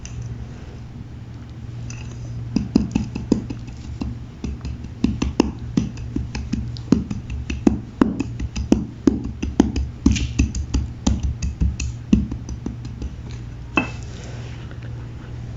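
Pressed gym chalk cake being crushed: a run of sharp crunches and cracks, two or three a second, starting a couple of seconds in and stopping near the end, over a steady low hum.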